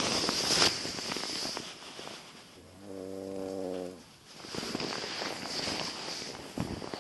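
Slow, rhythmic snoring. An airy, hissing breath at the start and again from about four and a half seconds in, with one pitched, buzzing snore lasting about a second in between.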